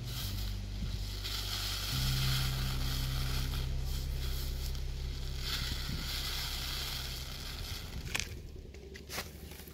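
Dry seed heads being crushed and rubbed between the hands over a paper sheet, a crackling, rustling sound in two longer spells, with a few sharp ticks near the end as seeds and stalk bits fall onto the paper. A low steady hum runs underneath.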